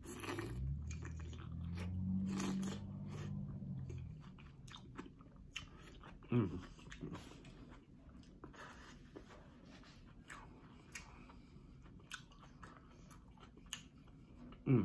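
A person chewing mouthfuls of mussels in butter sauce, with many small wet mouth clicks. A low hum of the voice lasts about three seconds near the start.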